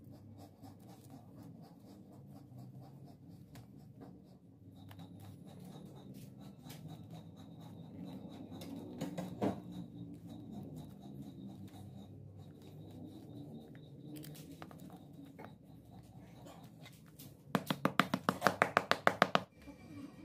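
Hands working a platform high-heel shoe: rubbing, scratching and handling noises of the upper and sole, then near the end a quick run of about a dozen sharp taps, roughly eight a second.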